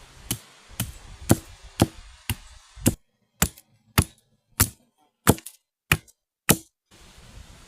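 Axe chopping wood: about a dozen sharp strikes in a steady rhythm, roughly two a second.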